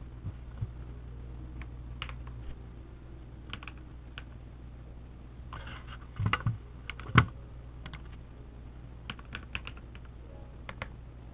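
Scattered keystrokes on a mechanical keyboard, coming in short bursts of a few presses with pauses between, over a steady low hum.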